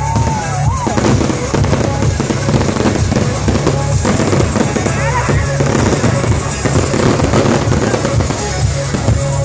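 Aerial fireworks bursting and crackling in a dense, rapid barrage without a break, over loud music with a steady deep bass.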